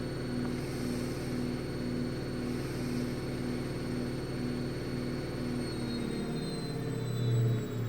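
Atlant 70U1214 washing machine spinning, a steady drone with a pulsing beat about twice a second. About six seconds in its pitch starts to fall as the drum slows, and a louder low hum swells near the end.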